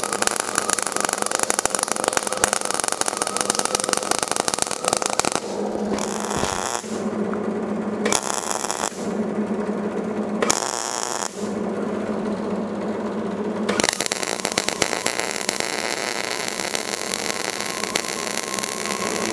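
MIG welding arc crackling on thin, rusty sheet steel with 75/25 argon–CO2 shielding gas. It runs steadily at first, then stops and starts in a few short bursts with pauses between, and runs steadily again near the end.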